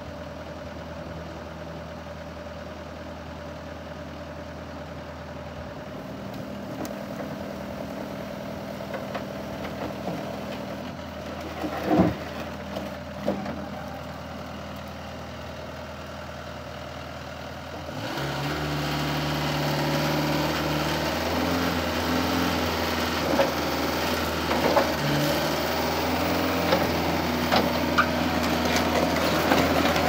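John Deere 333E compact track loader's diesel engine idling steadily, then rising slightly, with two sharp metal clanks a little before halfway. About 18 seconds in it jumps to a louder, higher-revving run, with scattered clanks and rattles as the machine works its loader arms and moves on its tracks.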